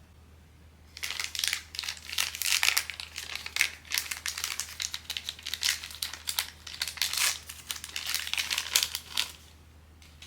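Crinkly plastic blind-box packaging being handled and crumpled in dense, irregular crackles. It starts about a second in and stops about a second before the end.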